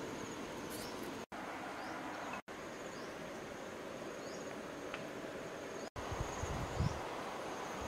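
Insects buzzing steadily in forest ambience: a high continuous whine with a short falling chirp repeating about once a second over an even hiss, broken by three brief silent gaps. Low muffled rumbles come in near the end.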